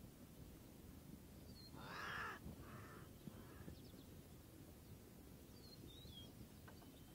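Near silence in open country, broken about two seconds in by a harsh animal call: one longer note followed by two shorter, fainter ones. Faint high bird chirps sound now and then.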